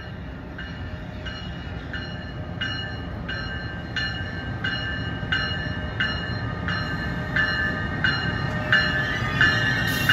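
NJ Transit ALP-46 electric locomotive's bell ringing steadily, about three strokes every two seconds, growing louder as the train pulls into the station over the low rumble of the train. A hiss comes in near the end.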